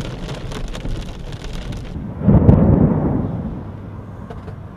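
Rain hitting a car's windshield with road noise, then, a little over two seconds in, a loud clap of thunder that rumbles and slowly fades.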